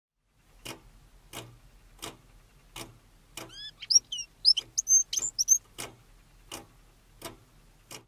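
Male red-cheeked cordon-bleu singing a short courtship song of high, quick notes, some gliding up and some down, near the middle. Under it runs an even ticking, one sharp click about every 0.7 seconds.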